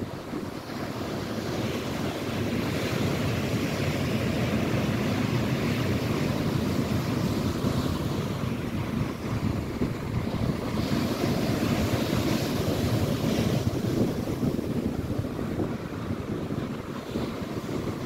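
Waves breaking on a lake shore in choppy water, with wind buffeting the microphone.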